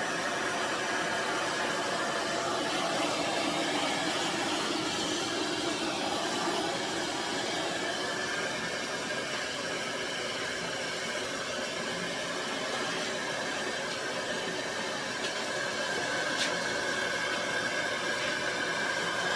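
Aria Beauty infrared ionic blow dryer with its nozzle fitted, running steadily: a continuous rush of air with a faint high whine, swelling and easing slightly.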